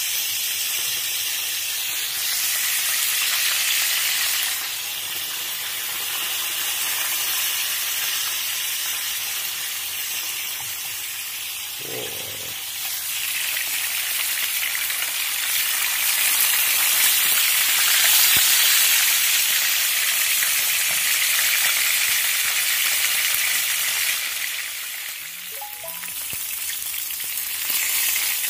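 Pieces of fresh fish frying in hot oil in a frying pan, a loud steady sizzle that swells and eases several times.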